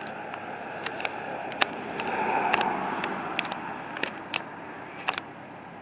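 Outdoor street noise: a vehicle passing, swelling about two seconds in and fading away, with scattered sharp clicks and taps.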